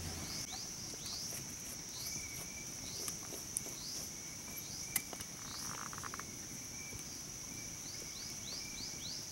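Steady high-pitched insect drone, with short falling chirps repeating every second or so. A single sharp click comes about five seconds in, followed by a brief scratchy rasp.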